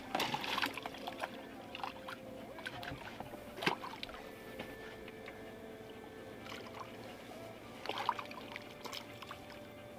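Water splashing at the side of a small boat as a hooked fish is worked to the surface and landed, with short sharp splashes near the start, about four seconds in and again around eight seconds.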